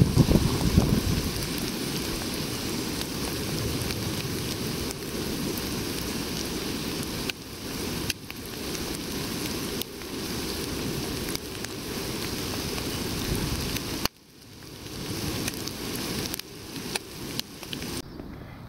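Hash browns and fried eggs sizzling in hot oil in a frying pan: a steady hiss with small pops and crackles. The sizzle cuts off abruptly about fourteen seconds in, then builds back up.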